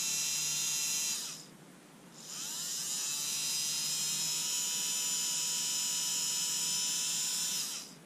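Small DC motor of a Panasonic EY503 cordless screwdriver running freely, a high whine that rises in pitch as it spins up. It cuts out about a second in, starts again and spins up a second later, then runs steadily until near the end. It is being run to work fresh oil into its dry bronze bush bearing.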